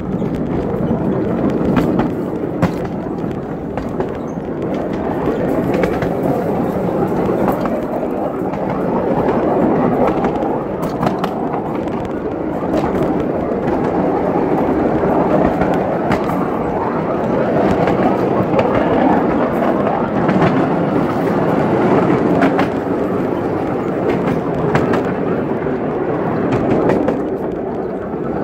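Miniature railway train rolling along its track, heard from aboard: a steady rumble of wheels on rail with scattered sharp clicks and clacks.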